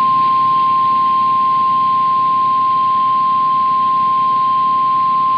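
NOAA Weather Radio's 1050 Hz warning alarm tone: one unbroken, steady, high-pitched tone over receiver hiss, the alert signal that comes before a watch or warning message is read.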